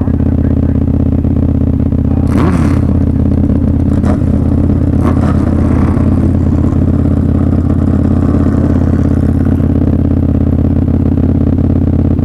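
Motorcycle engine idling steadily and loudly, with a few brief clattering noises over it about two to five seconds in.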